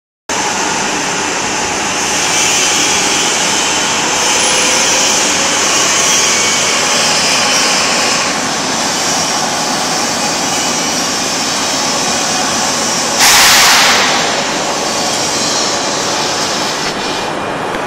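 Union boring mill under Centroid M400 CNC control running, a steady loud mechanical hiss and hum. About 13 seconds in, a louder hiss rises for about a second and fades.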